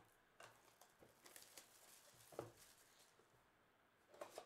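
Faint handling of a cardboard trading-card hobby box: fingers scraping and tapping the cardboard as the lid is worked open. There is a slightly louder knock about halfway through and a quick cluster of clicks near the end.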